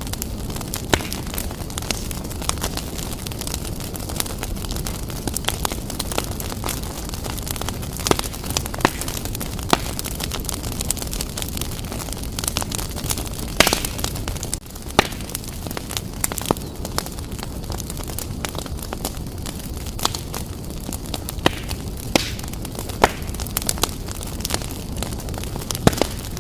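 Wood fire burning briskly in a fireplace: a steady low rumble of flames with irregular sharp crackles and pops, a few of them louder snaps.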